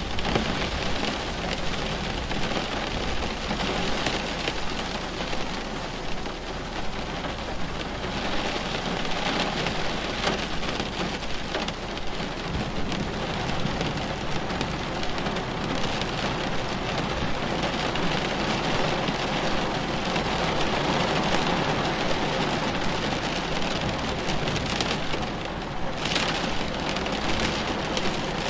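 Steady rain falling with a dense patter of drops, under a low rumble of thunder in a night thunderstorm.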